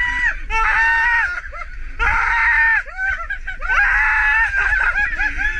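People screaming with excitement in long, high-pitched, wavering cries, with several voices overlapping.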